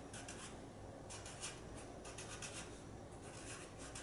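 Black felt-tip marker writing letters on paper: a run of short strokes in quick groups, separated by brief pauses.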